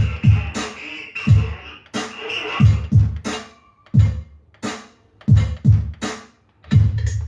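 Electronic drum beat played on a Sony stereo, in the style of 1980s–90s baile funk and hip hop, with heavy kick drums and sharp snare hits. It drops out briefly about six and a half seconds in, then the kick comes back.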